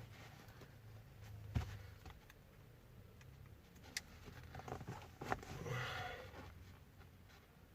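Small clicks and handling noise of hands working on car wiring, with a few sharp ticks and a short rasping sound about six seconds in.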